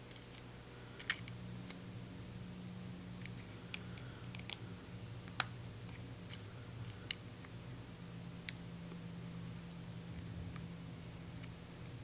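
A short hook and tension wrench picking a Brooks brass pin-tumbler padlock that has security pins: about a dozen small, irregular metallic clicks and ticks as the pins are worked, the sharpest about five seconds in. A low steady hum runs underneath.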